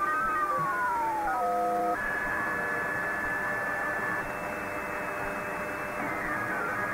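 Shortwave radio receiver picking up a Spooky2 frequency-generator transmission: electronic tones sliding in pitch over steady radio hiss. A tone falls in the first two seconds, jumps to a steady higher tone for about two seconds, and another falling glide begins near the end.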